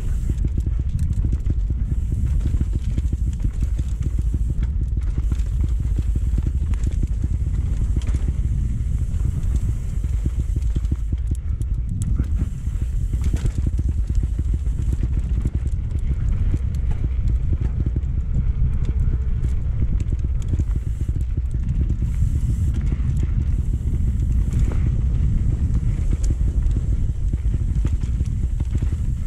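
Mountain bike racing down a rough enduro trail, heard from an on-board camera: heavy wind rumble on the microphone and a constant fast clatter and knocking of the bike over the ground.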